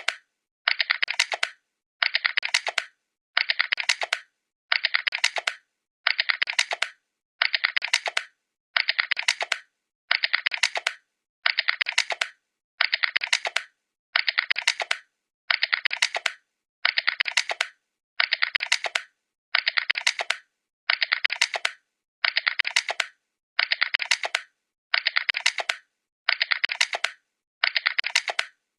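Computer keyboard typing: quick runs of keystroke clicks lasting just over a second, each cut off by a brief silence and repeating about every one and a half seconds, as a short sample played in a loop.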